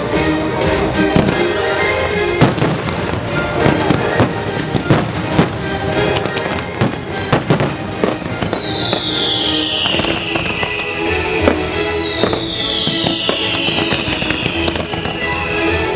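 Fireworks bursting in quick succession over loud show music, with several high whistles gliding down in pitch in the second half.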